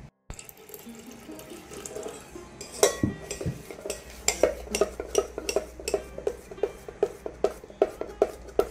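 A metal spoon stirring thick dosa batter in a stainless steel pot, scraping and clinking against the pot. From about four seconds in, the clinks come in a steady rhythm of about two to three a second.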